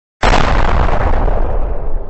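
Explosion sound effect: a sudden loud blast about a quarter second in that slowly fades away.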